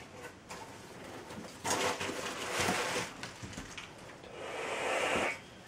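Plastic packaging rustling and crinkling in two stretches, as a plastic-wrapped RC remote is pulled out of its cardboard box.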